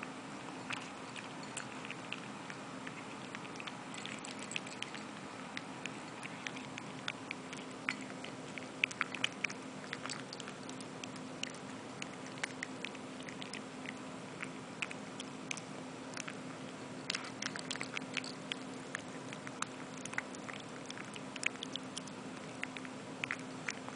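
Seven-week-old Boston Terrier puppy eating dry kibble from a ceramic bowl: irregular crunching and clicks of kibble against the bowl, busiest around nine seconds in and again from about seventeen seconds, over a steady low hum.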